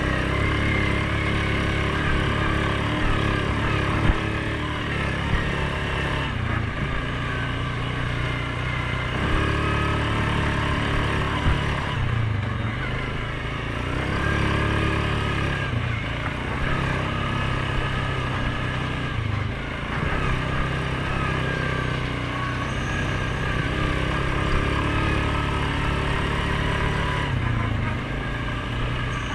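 Suzuki King Quad 750 ATV's single-cylinder engine running while riding, its pitch rising and falling again and again with the throttle. A few short sharp knocks come through, around four, five and eleven seconds in.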